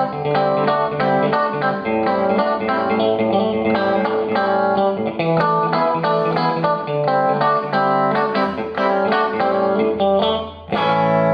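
Clean electric guitar, a Stratocaster-style guitar played through a Fender The Bends compressor pedal that is switched on: quick picked notes and chords at an even volume, the compression holding each note's level steady. There is a short dip near the end, then a new chord rings out.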